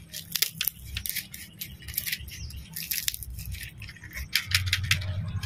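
A dry, mature okra pod being handled and picked at in the hands, giving a run of quick, dry crackles and rattling clicks.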